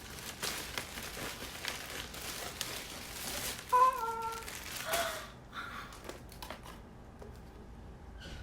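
Packaging crinkling and rustling as a parcel is unwrapped by hand, busy for about five seconds and then dropping to a few quieter handling clicks. A short high-pitched vocal sound cuts in about four seconds in.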